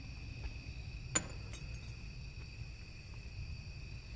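Steady high-pitched chorus of night insects such as crickets, with a single sharp click about a second in.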